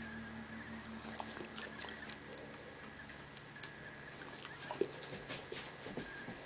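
Faint, scattered light clicks and ticks over a low steady hum.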